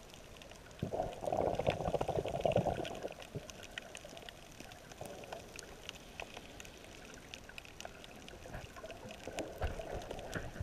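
Muffled underwater water noise heard through a submerged camera housing, with a louder swirling rush of water for about two seconds near the start and faint scattered clicks and crackles throughout.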